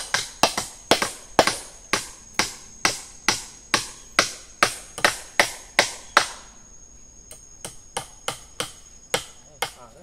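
Hammer driving nails into wooden timber: steady sharp strikes about two or three a second, turning lighter after about six seconds and stopping near the end.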